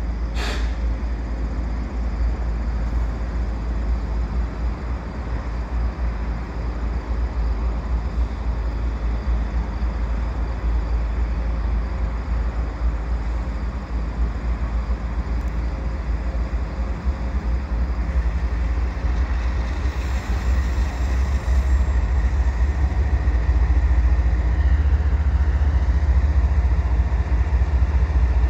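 Canadian Pacific diesel freight locomotives running as the train moves slowly forward, a steady low engine drone that grows louder over the last several seconds as the lead unit comes closer. A short sharp click sounds right at the start.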